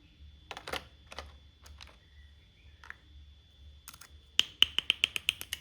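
Plastic toy doctor-set pieces being handled, with scattered light taps and knocks. Near the end comes a quick run of about ten sharp clicks.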